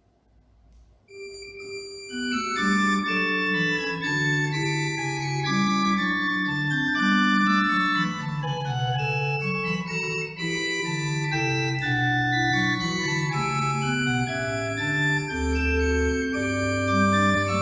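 Pipe organ playing slow, sustained chords. It begins about a second in, and deep pedal bass notes join near the end.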